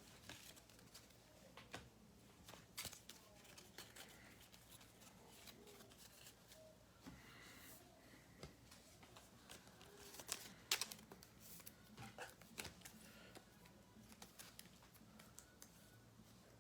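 Near silence with faint, scattered clicks and light rustling of trading cards being handled and sorted on a table. The clicks bunch together about ten to thirteen seconds in.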